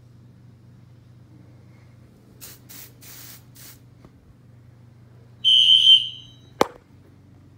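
Aerosol canned smoke sprayed at a smoke detector in four short hissing bursts, then a loud, high-pitched beep lasting about half a second and a quick downward-sweeping chirp, over a low steady hum.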